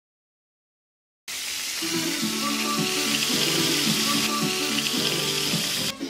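Dead silence for about a second, then loud sizzling of food frying in a skillet, with music playing over it; both cut off abruptly just before the end.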